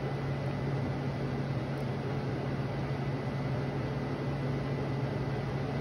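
Steady low hum of a running machine with an even hiss and a faint thin high whine over it.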